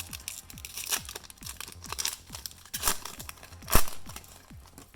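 Foil Pokémon booster pack wrapper crinkling and being torn open, with one loud sharp rip about three-quarters of the way through. Background music with a steady beat plays underneath.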